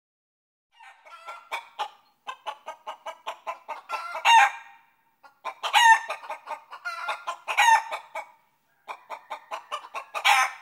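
Chickens clucking in quick, rapid runs, broken several times by a louder, drawn-out squawk that bends in pitch.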